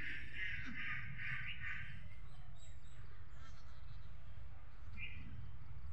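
A quick run of harsh animal calls for about two seconds, then one short call about five seconds in, over a steady low rumble.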